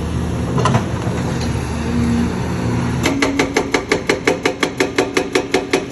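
Excavator's diesel engine running steadily, then about three seconds in a hydraulic rock breaker starts hammering on basalt rock, a fast, even run of sharp blows at about six a second.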